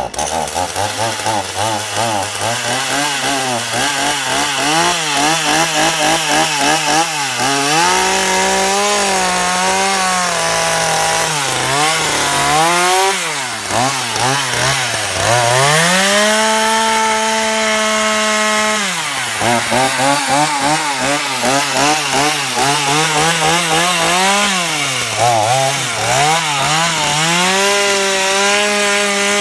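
Ryobi 14-inch chainsaw cutting into a large pumpkin. The motor's pitch holds high for a few seconds at a time, then falls and climbs back again and again as the trigger is eased and squeezed.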